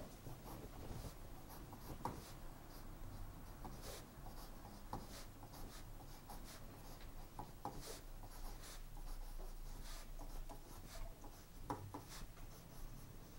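Pen tip scratching on drawing paper while hand-lettering capital letters: faint short strokes, irregular and separated by brief pauses.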